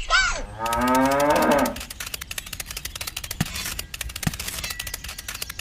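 A cow mooing once, a drawn-out call of about a second that sinks slightly in pitch, followed by a long run of light clicks and ticks.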